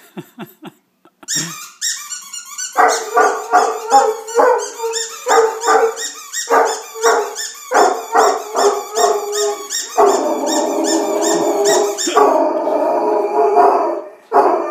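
Irish Wolfhound giving a run of short, pitched yelping barks, about two a second, over rapid high squeaking from a rubber squeaky toy. About ten seconds in this turns into one long, unbroken howl lasting several seconds.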